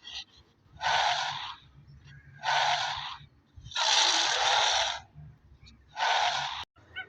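An animal's loud breathy huffs: four separate blasts of about a second each, with short gaps between.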